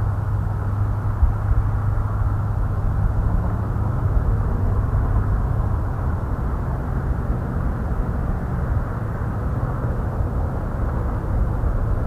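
Wind buffeting the microphone: a steady, uneven low rumble with a hiss of open-air noise.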